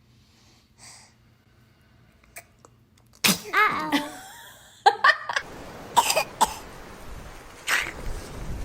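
Baby sneezing several times in quick succession, a run of short, sharp sneezes starting about three seconds in.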